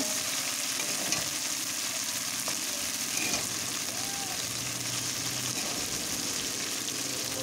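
Goat meat frying in a kadai of oil-rich spice paste, sizzling steadily. The masala has released its oil, the stage at which the meat is browned in the spices.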